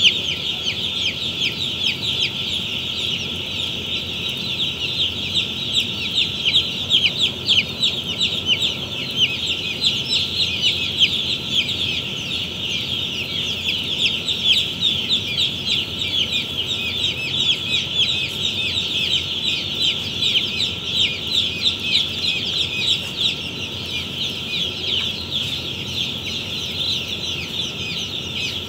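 A large flock of day-old chicks peeping in a dense, unbroken chorus: many short, high cheeps that slide downward and overlap without pause.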